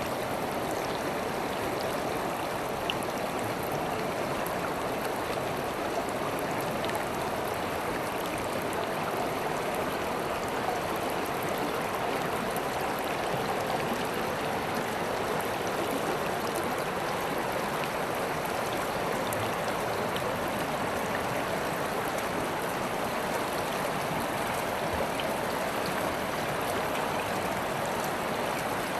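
River water flowing steadily, a constant rushing and babbling with small splashes.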